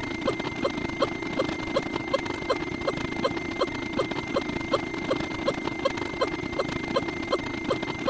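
A dense jumble of many sound effects played on top of one another: a quick even run of short chirps, about three a second, over a steady high tone and a low drone.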